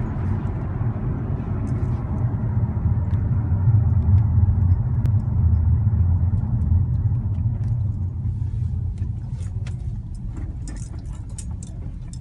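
A car on the move with a steady low rumble that swells in the middle and then eases off. Short sharp clicks and knocks come more often in the second half, the noise from the front suspension.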